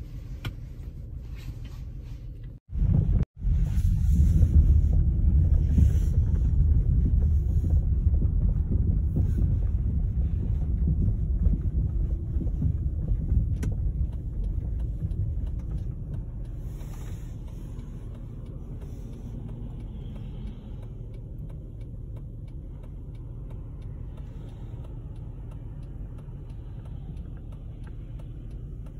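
Low rumble of a car driving, heard from inside the cabin: engine and tyre noise. It cuts out twice briefly about three seconds in, is louder for the next dozen seconds, then settles lower.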